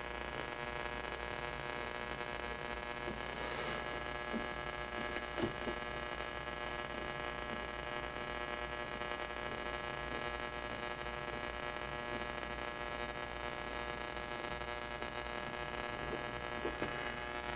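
Commodore EB2500 solid-state radio on the shortwave band, giving steady static hiss with a constant buzzing hum and no station coming through.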